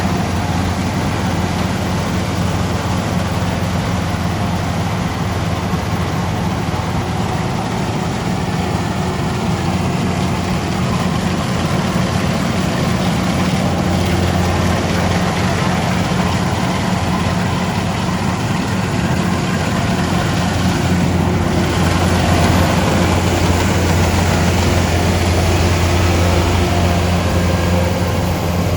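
Kubota DC-105X rice combine harvester's diesel engine running steadily with a constant low hum.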